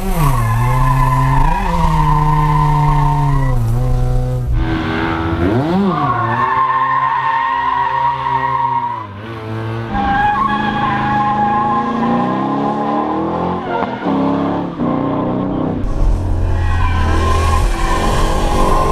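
Drifting car: engine revving up and down several times with a sustained tyre squeal. In the first part it is the Mazda RX7's two-rotor rotary engine, heard from inside the car.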